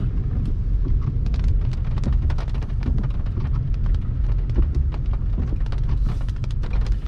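Wind buffeting the microphone of a camera in a moving car: a loud, continuous low rumble with crackling pops.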